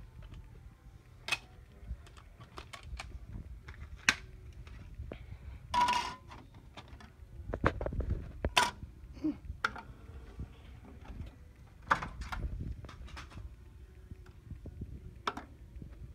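Scattered clicks and knocks with low rumbling as a handheld phone camera is moved about and things on a table are handled, with a short scraping rustle about six seconds in.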